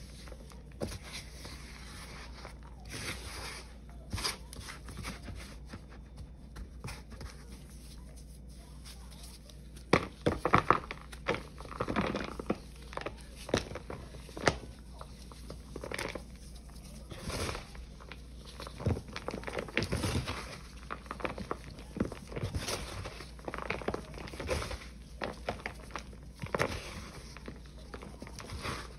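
Gloved hands crushing and crumbling dried balls of Ajax cleanser paste in loose powder: soft brushing and rustling at first, then irregular gritty crunches and crackles from about ten seconds in.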